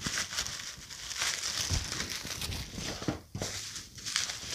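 Bubble wrap crinkling and crackling as a wrapped item is pulled out of a cardboard box and handled, in irregular bursts with a few short pauses.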